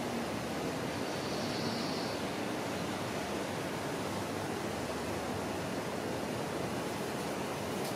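Steady outdoor rushing noise, even and unbroken. About a second in, a faint thin high tone is held for about a second.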